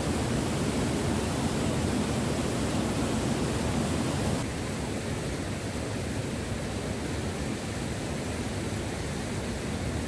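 Steady rushing of a waterfall's cascades tumbling over rock. About four seconds in it drops to a quieter, even rush of flowing water.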